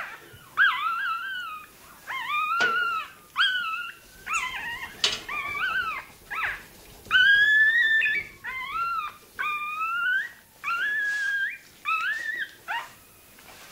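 Russian Toy terrier puppy crying in distress during tail docking: a rapid series of about a dozen high-pitched squeals, each lasting up to a second, some rising then falling in pitch.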